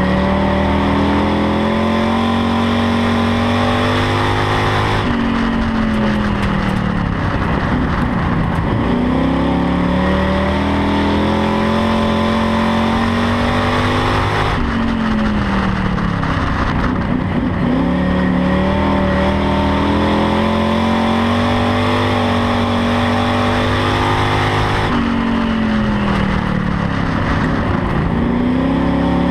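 Chevrolet Camaro dirt-track stock car's engine held at full throttle. Its pitch drops as it lifts off for the turns, three times about ten seconds apart, and climbs again as it powers back out, lap after lap.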